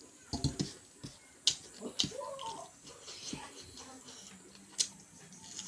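A person eating chicken and rice by hand, chewing with scattered sharp mouth clicks and smacks.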